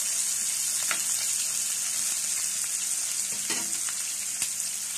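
Sliced onions sizzling in hot oil in a nonstick frying pan, a steady high hiss, as they fry toward brown. A spatula stirring them makes a few faint clicks.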